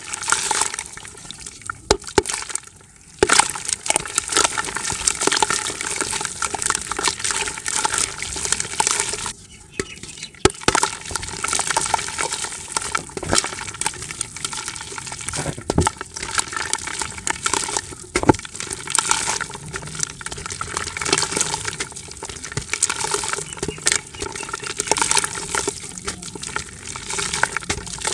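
Dry dirt crumbled by hand, small lumps and grains crunching and falling into a bucket of water in a constant crackling, splashing stream. There are two brief lulls, about three seconds in and about ten seconds in.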